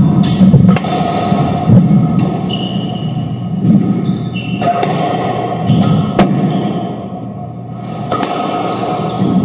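Squash ball being struck by rackets and hitting the court walls during a doubles rally: irregular sharp knocks, each followed by a short ringing tail.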